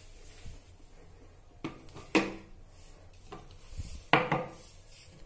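A small glass flower pot and decorative pieces set down and shifted on a ceramic bathroom sink: several hard clinks and knocks, the loudest about two and four seconds in, each ringing briefly.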